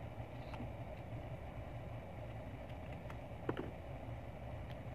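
A few light clicks from fingers handling an iPhone X's glass and frame on a repair mat, the loudest a quick double click a little past the middle, over a steady low hum.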